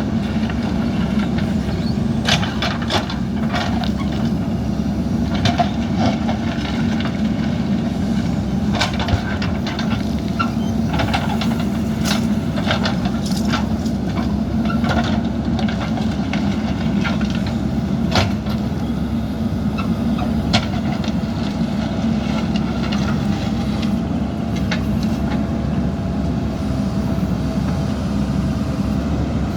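JCB backhoe loader's diesel engine running steadily under working load, with frequent sharp knocks and clanks as it digs and levels gravel, most of them in the first two-thirds.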